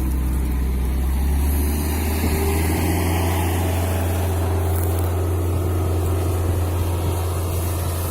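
Engine of a TROM all-terrain vehicle running steadily, with a deep, even low drone.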